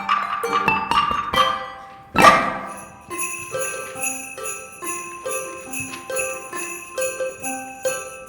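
Handbell ensemble ringing a tune: a loud chord about two seconds in, then a steady run of bell notes, about two a second, each left ringing.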